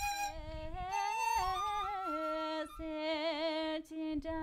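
A voice singing a slow melody in long held notes that glide and waver, with two short breaks for breath. A flute-like tone ends right at the start.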